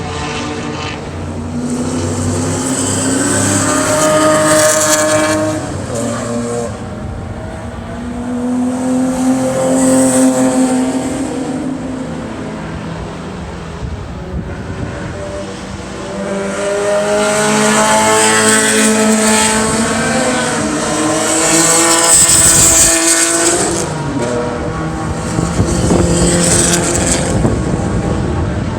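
Race cars going past one after another at high revs, each engine's pitch climbing and then dropping as it shifts and passes.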